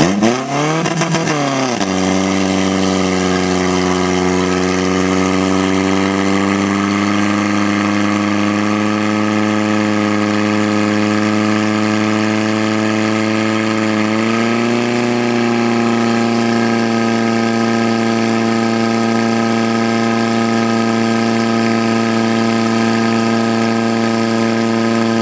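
Portable fire pump's engine running at high revs while pumping water out through the attack hoses. It swings up and back down in pitch in the first two seconds, then holds a steady high drone, stepping a little higher about 14 seconds in.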